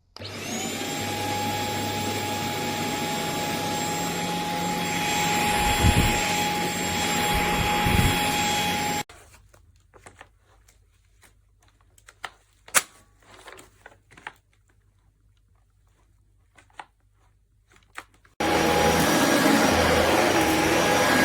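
Stick vacuum cleaner switching on and running with a steady high whine for about nine seconds, then stopping suddenly. A quieter stretch of scattered clicks and knocks follows, and the vacuum runs again near the end.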